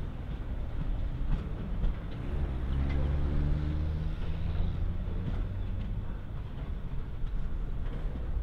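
Container-laden flat wagons of an intermodal freight train rolling past, a continuous rumble of steel wheels on rail with occasional sharp clicks. The low hum grows stronger between about two and five seconds in.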